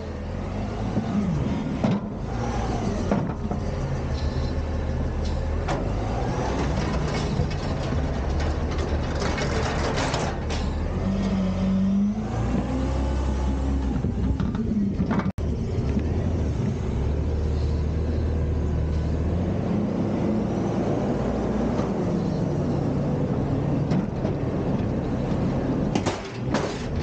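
Front-loader garbage truck's engine running and revving, its pitch rising and falling as the truck works, with a few sharp knocks and clanks along the way.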